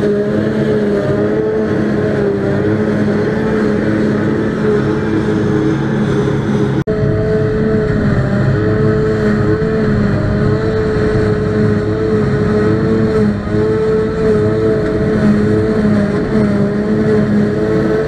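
Claas Jaguar 840 forage harvester running steadily under load while picking up and chopping grass for silage, with a tractor working alongside: a constant engine drone with a high whine held over it. There is a very brief break in the sound about seven seconds in.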